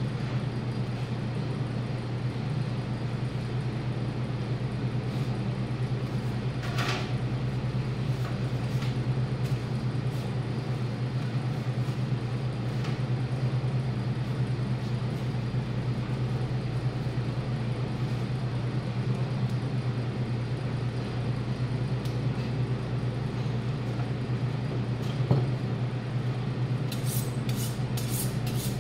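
A steady low hum runs throughout, with an occasional knock. Near the end comes a quick run of sharp metallic strokes: a butcher's knife being drawn along a honing steel.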